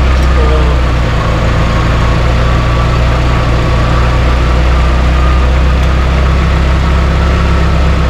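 Car engine idling steadily, with a constant low hum that does not change pitch.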